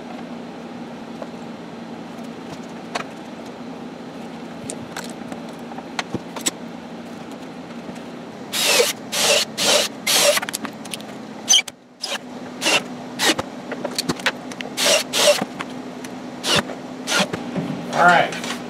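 Cordless Ridgid impact driver driving screws into the sled's fence in a series of short bursts, starting about eight seconds in. Before that there are only a few light handling clicks over a steady low hum.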